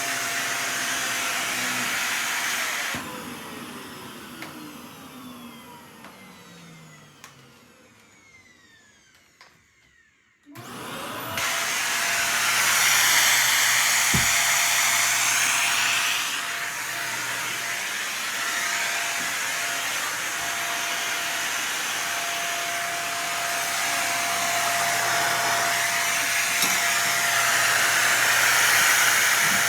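Vacuum cleaner running, switched off about three seconds in, its motor whine falling in pitch as it spins down to near silence. About ten seconds in it is switched back on, spins up quickly and runs on with a steady high whine, its loudness swelling and easing slightly.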